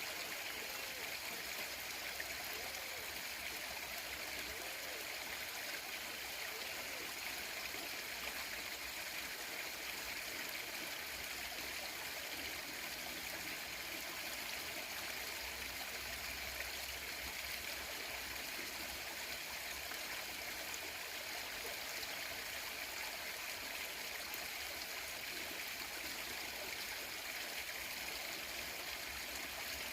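Stream water flowing over rocks, a steady babbling rush.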